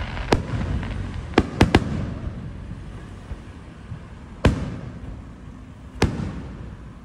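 Aerial fireworks shells bursting with sharp bangs: one just after the start, a quick cluster of three about a second and a half in, then single bangs about four and a half and six seconds in.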